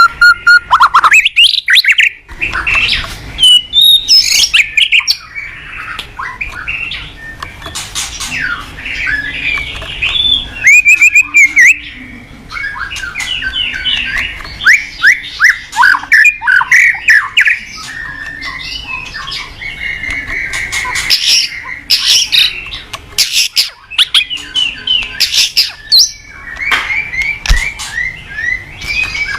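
White-rumped shama singing in full, continuous song: a long run of loud, varied phrases of whistled glides, rapid chirps and short harsh notes, broken by brief pauses.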